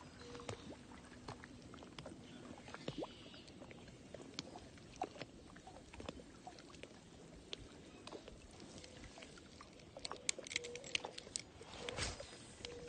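Faint scattered clicks and ticks from a fishing rod and spinning reel being handled, with a run of sharper clicks about ten seconds in and a brief rustle near the end as the rod is gripped and moved.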